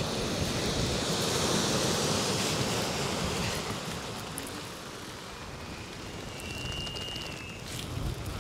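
Small waves breaking and washing over a shingle beach, a steady hiss that is loudest in the first few seconds, with wind on the microphone. A faint high whistle sounds briefly about seven seconds in.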